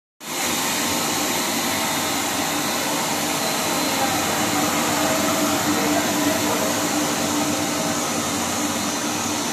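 HDPE pipe extrusion line running: a steady mechanical whir of its electric motors, gearbox and blower, with a steady low hum and a thin high whine over it.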